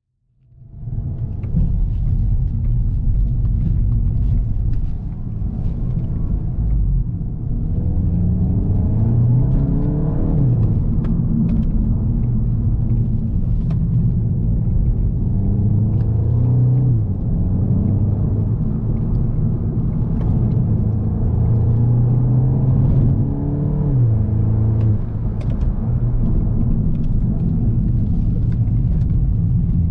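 2021 VW Golf GTI Mk8's turbocharged 2.0 TSI four-cylinder engine running under way, fading in over the first second. Its pitch climbs and then drops sharply several times as the seven-speed DSG gearbox shifts.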